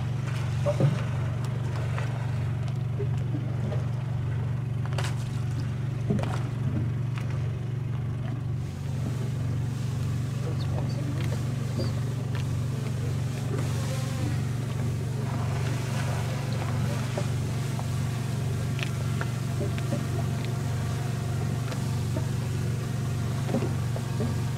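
A boat's engine runs steadily with a low, even hum, and a couple of brief knocks are heard near the start.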